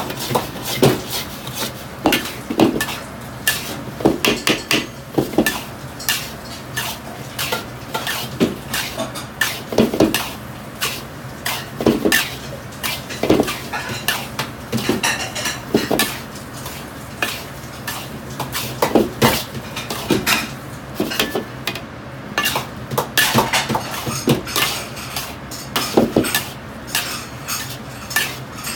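Metal ladle scraping and knocking against an iron wok as salt with peppercorns and star anise is stirred and tossed dry over the flame, the salt grains rustling. This is the roasting stage of making spiced salt (jiaoyan). The strokes are irregular, about one to two a second, over a steady low hum.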